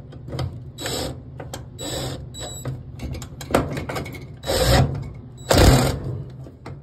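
Cordless drill driving in the screw that holds a dryer's new belt tensioner, in about five short bursts of the motor, the last two the loudest.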